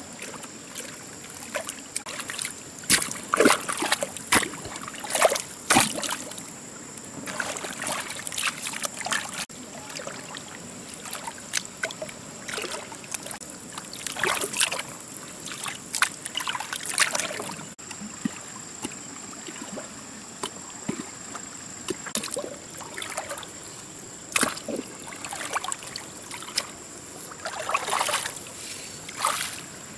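Water splashing and sloshing in irregular bursts, with a trickle between them, over a steady high-pitched whine.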